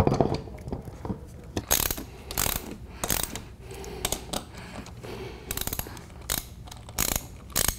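Ratchet wrench clicking in several short runs as the lug nuts are run on to hold a power wheelchair's drive wheel onto its motor.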